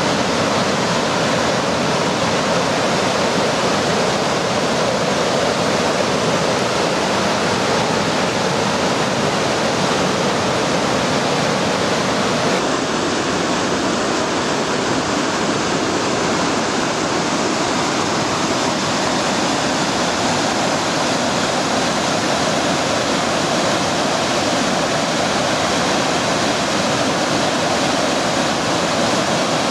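Waterfall and river rapids rushing steadily over rocks, with a slight change in tone about twelve seconds in.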